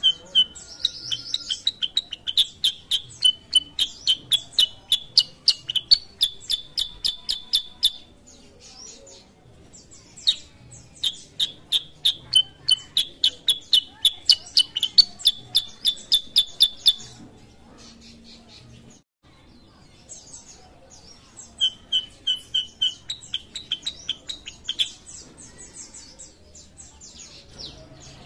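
Caged kutilang sutra bulbul singing: three long bouts of rapid repeated high chirps, about four to five a second, with pauses of a few seconds between them.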